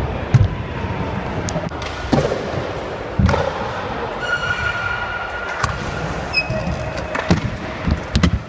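Scooter and bike wheels rolling over wooden skatepark ramps, a steady rumble with several sharp thuds and clacks of landings and decks hitting the ramps. A short high squeal comes in a little after four seconds.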